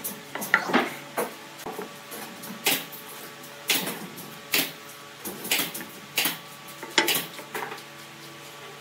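Wooden blank pieces knocked and set down on a metal bandsaw table: about ten sharp, irregular clacks, over a faint steady machine hum.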